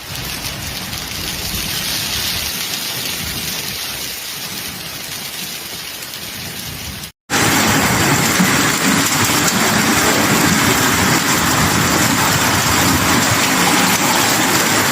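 A hailstorm with heavy rain pelting down in a dense, steady clatter. A sudden cut about seven seconds in leads to a second, louder stretch of the same downpour.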